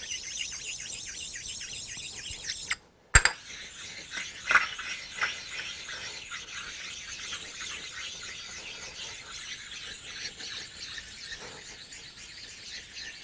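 Precision ground sharpening stones scraped back and forth over a mill-drill's metal table, a steady high scraping with a few sharper strokes, as the stones take the tops off raised dings in the table. The sound cuts out briefly a little under three seconds in.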